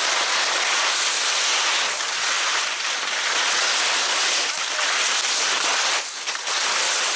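Skis sliding and scraping over hard snow at speed: a steady hiss, with a short rougher break about six seconds in.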